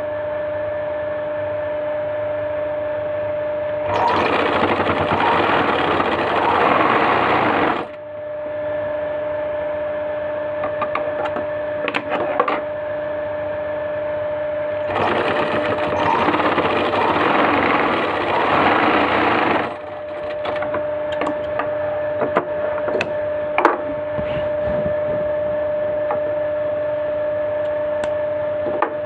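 Sewing machine stitching in two runs of about four seconds each, over a steady hum, with small handling clicks between the runs.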